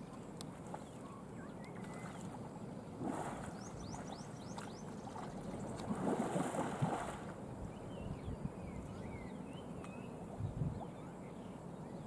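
Water splashing as two wild Sri Lankan elephants jostle while swimming in a lake: a short splash about three seconds in and a bigger one, the loudest, at about six to seven seconds.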